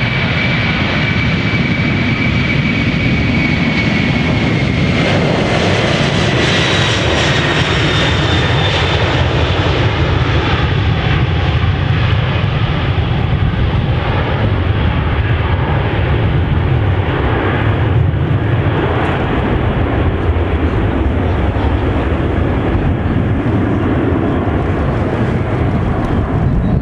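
Boeing 747-400's four turbofan engines at takeoff thrust as the jumbo jet rolls, lifts off and climbs away: a loud, deep jet rumble. Early on a fan whine glides down in pitch as the aircraft passes, and the higher part of the sound thins out near the end as it climbs away.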